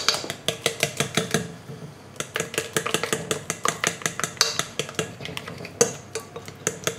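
A metal utensil stirring and beating batter in a glass bowl, clinking against the glass in quick strokes, with a short pause about two seconds in.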